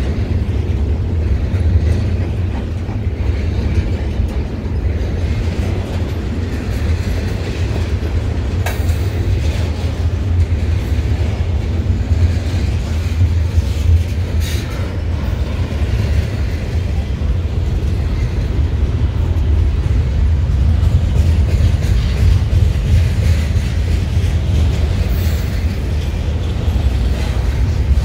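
CN double-stack container freight train rolling past at close range: a steady low rumble of wheels on rail, with a few faint clicks.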